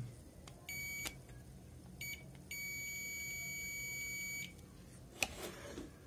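Multimeter's continuity buzzer beeping as its probes touch motherboard contacts: a short beep, a very brief one, then a steady high-pitched beep of about two seconds, each one a sign of an electrical connection between the probes. Near the end there is a sharp click and some rustling.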